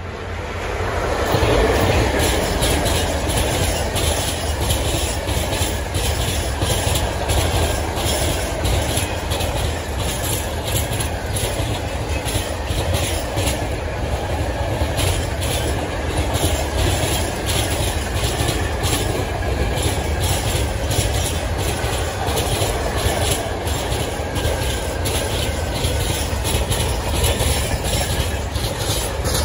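A long freight train of high-sided open wagons passing close by: the locomotive draws level about two seconds in, then the wagons keep going by with a steady rumble and a fast, even clickety-clack of wheels over the rail joints.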